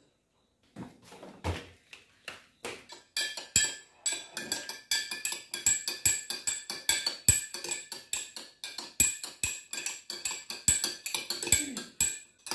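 Metal spoon stirring in a drinking glass of lime water, clinking against the glass about three times a second with a high ringing after each strike; softer knocks come before the clinking settles in about three seconds in.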